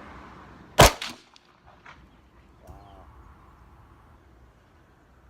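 A single sharp rifle shot from an AR-pattern rifle about a second in, followed by a few much fainter clicks.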